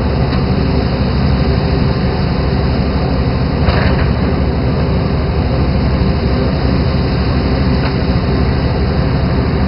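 A fishing boat's engine running steadily with a constant low drone, and a short whoosh of water about three and a half seconds in.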